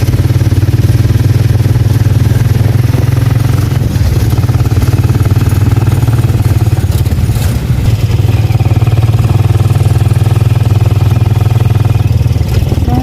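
Small motor vehicle engine running steadily, a loud, even low drone with a faint whine above it in the second half.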